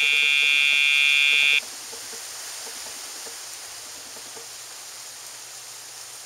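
Dogtra e-collar pager giving a steady electronic buzz that cuts off suddenly about one and a half seconds in.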